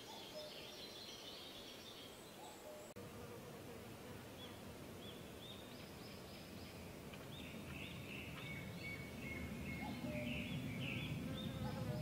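Faint woodland ambience: scattered short, high chirps from small birds and a low rumble that grows louder over the second half.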